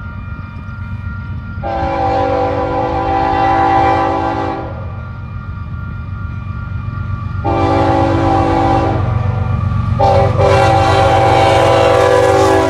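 Union Pacific C44AC diesel locomotive's multi-note air horn sounding for a grade crossing: two long blasts, a short one, then a long one held on. The diesel and the train rumble steadily underneath.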